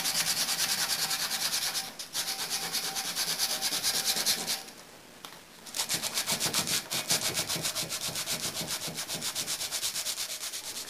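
Coarse-grit aluminium-oxide emery cloth rubbed by hand around a rusty metal shaft in fast back-and-forth strokes, about six a second, scouring off rust and deep scratches. The strokes break off briefly about two seconds in, then pause for about a second near the middle before starting again.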